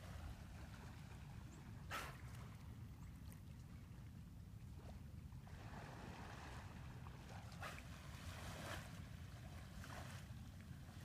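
Steady low rumble of an idling boat motor, with about four short sharp puffs of dolphins blowing as they surface beside the boat: one about two seconds in and three more close together in the second half.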